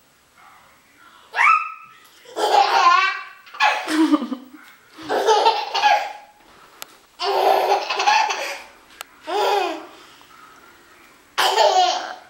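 Hearty laughter in about half a dozen bouts with short pauses between, the first a brief rising squeal.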